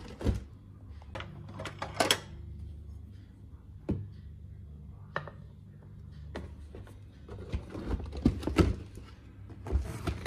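Knocks, taps and rustles from a cardboard donut box and a white ceramic plate being handled and set down on a table, one clink ringing briefly about two seconds in and a quick cluster of knocks near the end, over a steady low hum.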